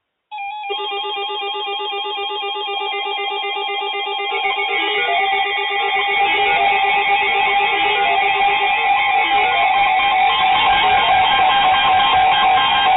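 Several weather alert radios sounding their alarms at once: a warbling two-tone alert mixed with overlapping beeping, melody-like alert tones that start abruptly and grow louder about four seconds in. The alarms signal an incoming warning broadcast.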